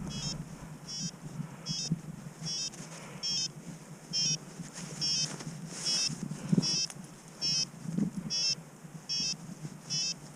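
Paragliding variometer beeping a short, high chirp a little more than once a second, the climb tone that signals rising air, over a faint rumble of wind on the microphone.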